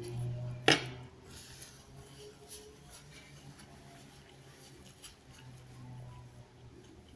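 A metal spoon clinks once, sharply, against the dish a little under a second in, with a brief ring. Fainter small tableware and eating sounds follow over a low steady hum.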